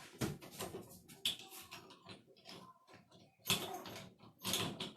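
Clicks, knocks and scraping from handling and fitting a door lock's parts on a door, with two longer scraping stretches near the end.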